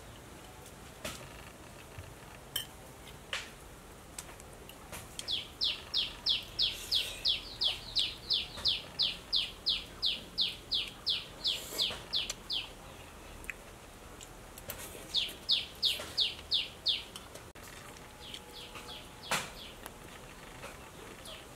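A bird calling in long runs of quick, evenly spaced chirps, each note falling in pitch, about four a second: one long run, then a shorter run and a fainter one. A few light clicks of chopsticks and a spoon against a clay pot come in between.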